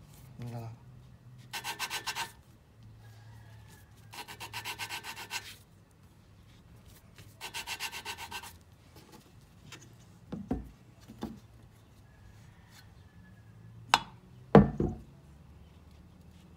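Hand lapping of an intake valve in a Honda Accord V6 aluminium cylinder head: a wooden suction-cup lapping stick spun back and forth between the palms grinds the valve face against its seat with grinding compound, giving three bursts of quick, rhythmic rasping. Later come a few short knocks, the loudest near the end.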